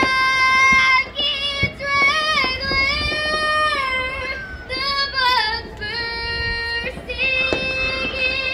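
A young female voice singing solo in long held notes that glide from one pitch to the next.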